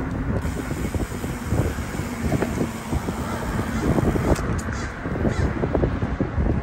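Wind buffeting the microphone of a camera carried on a moving bicycle: a continuous, unsteady low rumble.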